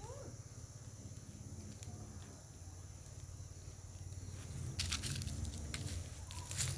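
Dry leaves and grass rustling and crackling, starting about two-thirds of the way in and getting louder, over a low steady rumble.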